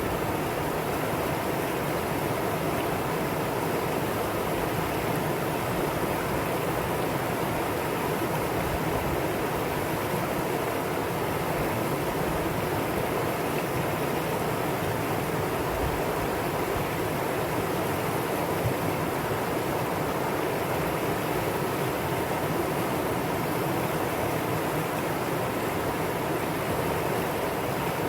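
Mountain stream water rushing over rocks: a steady, even rush with no pauses.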